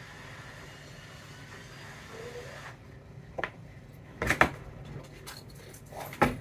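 Tools being handled on an electronics repair bench: a faint steady hiss stops suddenly about three seconds in. A few sharp knocks and clicks follow, the loudest a little past four seconds and another just before the end.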